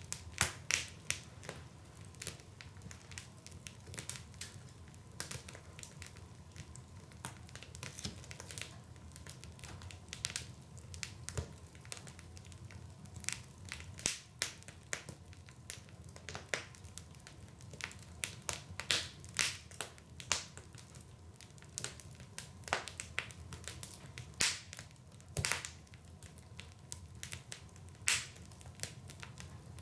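Wood fire in a fireplace crackling: irregular sharp pops and snaps of burning logs over a low steady rumble of the flames.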